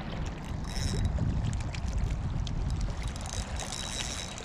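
Wind rumbling on the microphone while a hooked fish is fought on a bent rod, with a fishing reel giving a short high-pitched whirr twice: about a second in and again near the end.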